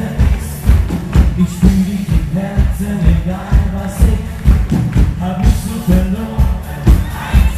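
Live band music with a steady beat of about two pulses a second, with electric bass and drums, and a male singer singing into a microphone over it.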